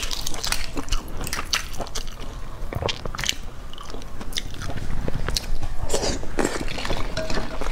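Eggshells crackling and breaking as cooked eggs are peeled by hand, in a run of irregular sharp crackles.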